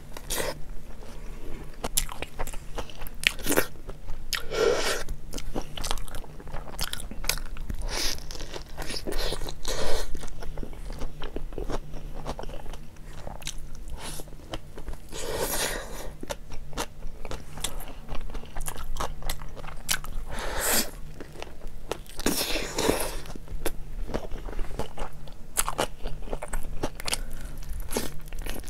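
Close-miked eating of a hot dog in a soft bun: repeated bites and chewing with frequent crunches.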